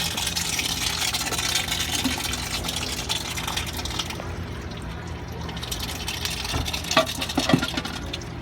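Water gushing and spraying from a leaking cartridge water-filter housing into a bucket. The hiss drops off sharply about four seconds in, and a few knocks follow near the end.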